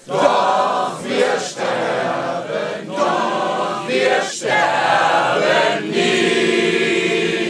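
A crowd of men and women singing together in chorus, line by line with short breaks between phrases, the last line held long.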